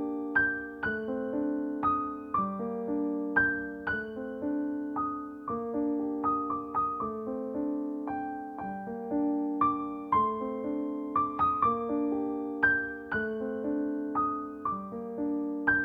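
Background solo piano music: a melody of struck, decaying notes over held chords.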